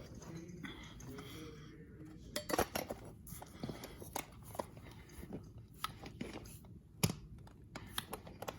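Irregular clicks, knocks and crunching as carpet stretchers are set and the carpet is worked into place, with one sharper knock about seven seconds in.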